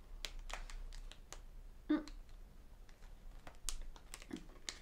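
Biting and chewing a giant macaron with a very hard shell: irregular crisp crunching clicks with pauses between them.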